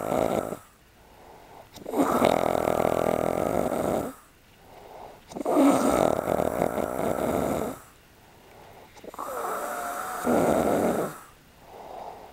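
A man snoring in his sleep: one snore ends about half a second in, then three more follow, each about two seconds long, with short quiet gaps between.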